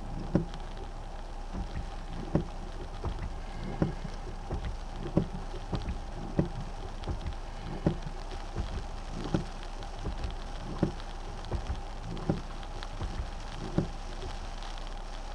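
Rain on a stopped car, heard from inside the cabin: a steady low hum with soft taps on the body about once a second.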